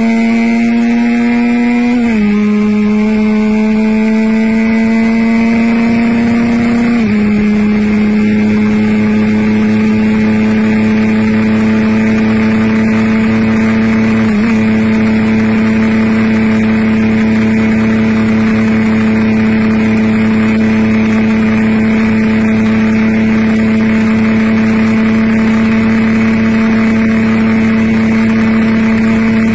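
Small sport motorcycle's engine at high revs under hard acceleration. Its pitch climbs and steps down at two upshifts, about 2 and 7 seconds in, then holds a steady high note at speed.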